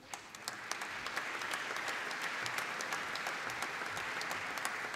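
Audience applauding: many people clapping, building over the first second, then steady and easing slightly near the end.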